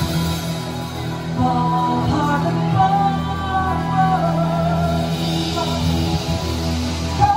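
Live rock band playing a song, with the drum kit played throughout and a voice singing the melody from about a second in.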